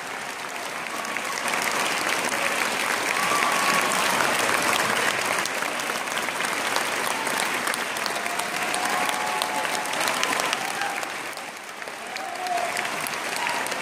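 Concert audience applauding: dense, continuous clapping from a hall full of people, with a few voices calling out over it.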